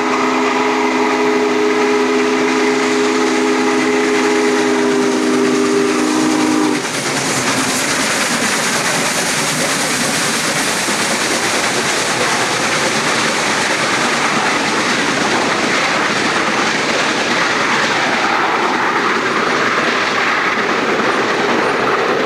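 Union Pacific Challenger No. 3985, an articulated steam locomotive, blowing its steam whistle in one long blast that stops about seven seconds in, then passing close with a loud steady rush of locomotive and train noise as the passenger cars roll by.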